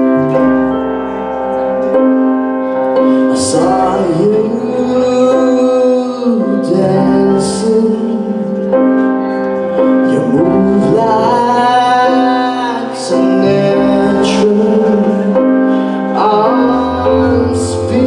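Live band playing: held Roland RD-300 stage-piano chords with electric guitar and bass. A lead line slides up and down in pitch, and there are short crashes every few seconds.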